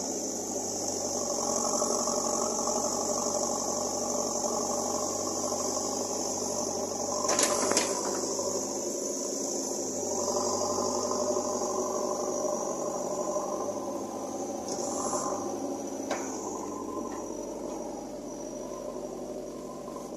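Diesel engine of a JCB backhoe loader running steadily under work, with a steady high whine above it and a few sharp knocks, one about halfway in.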